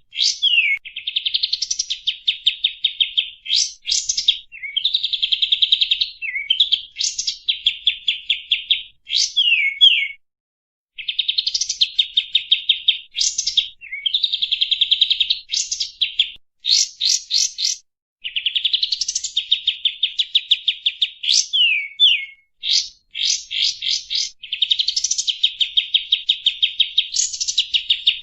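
Kapas tembak song played as a lure call: repeated phrases of a fast, buzzy trill with quick rising sweeps, each ending in sharp falling whistles, separated by brief pauses.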